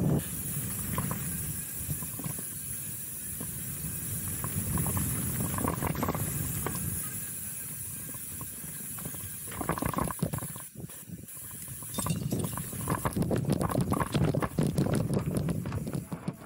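Steel hardtail mountain bike rolling fast down a dirt singletrack: steady tyre rumble and wind hiss, with the bike clattering and rattling over rough ground through the second half.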